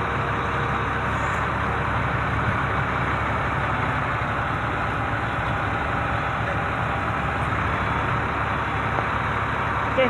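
Large forklift's diesel engine running steadily while it carries a road roller on its forks: a constant low hum with no change in pitch.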